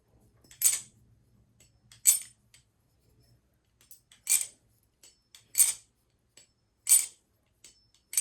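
Baliplus Orca V2 clone balisong flipped in an ice-pick-grip sound test: five sharp metallic clacks a little over a second apart as the handles snap against the knife.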